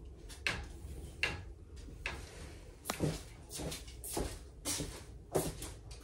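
Footsteps and light knocks as a person walks across a bedroom floor: a series of short, irregular thuds and clicks.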